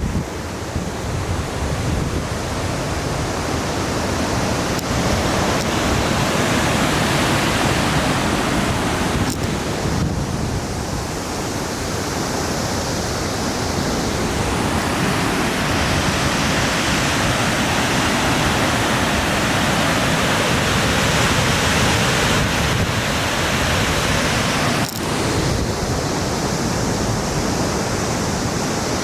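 Tumalo Falls, a plunge waterfall on Tumalo Creek, rushing loudly and steadily.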